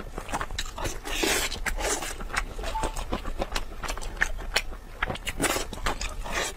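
Close-miked eating sounds from someone working through sauce-glazed ribs: wet chewing, short smacks and clicks. There is a longer noisy stretch about a second in and another near the end.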